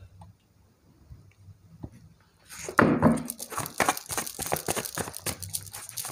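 A deck of tarot cards being shuffled by hand. It is quiet at first, then from about halfway it starts suddenly and loudly and runs on as rapid, dense flicking of cards, several a second.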